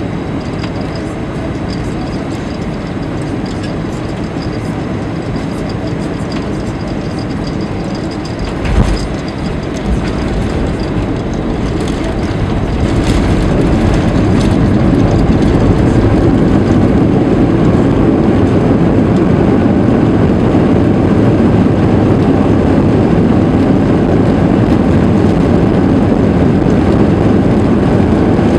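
Airbus A320 landing heard from the cabin: steady engine and airflow rumble, a sharp thump about a third of the way in as the wheels touch down, a smaller bump a second later, then the noise grows louder and stays loud as the aircraft slows on the runway.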